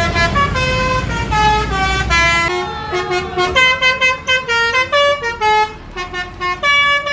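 Bus 'telolet' multi-tone horn playing a quick tune of held notes that step up and down, over a low engine rumble that eases about two and a half seconds in.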